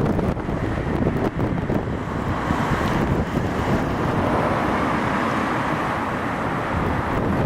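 Steady road traffic noise from vehicles passing on a busy road, with wind buffeting the microphone.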